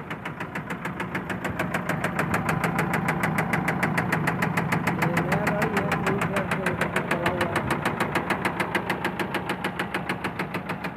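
Eicher Pro 2059XP BS6 truck engine idling with a sharp, regular knock, about ten knocks a second. The mechanic, having found metal at the sump drain plug, takes the knock for a worn-out connecting rod bearing.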